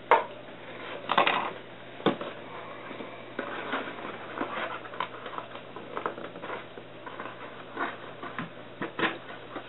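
Hair-cutting scissors cutting through a cardboard box: a run of irregular crunching snips, with louder cuts at the start, about a second in, about two seconds in and near the end.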